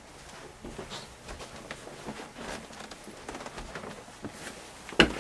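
Footsteps and faint shuffling, then one loud, sharp knock near the end.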